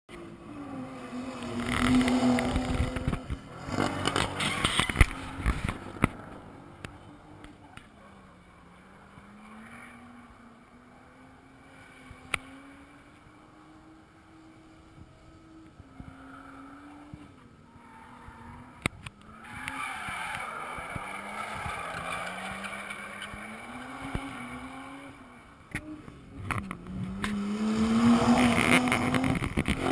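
A car's engine revving up and down through a run around the course, fading as it goes far off in the middle and growing loud as it passes close a couple of seconds in and again near the end.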